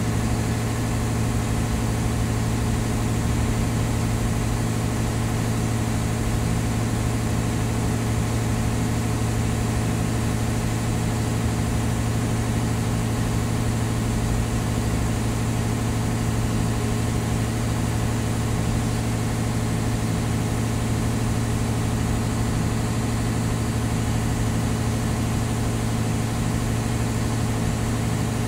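Ship's engine running with a steady low drone that holds the same pitch and level throughout.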